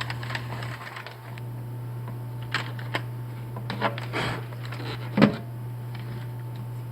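A computer keyboard being handled, with a few scattered key clicks and knocks, the loudest about five seconds in, over a steady low hum.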